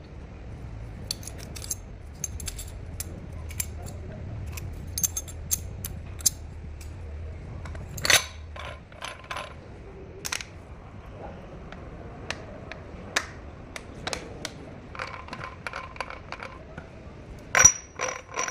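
Metal parts and tools of a truck differential clinking and tapping as the gears are fitted, in irregular single strikes, with louder clanks about eight seconds in and near the end. A low hum runs under the first half.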